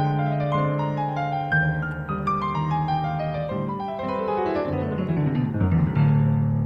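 Background piano music, with quick falling runs of notes.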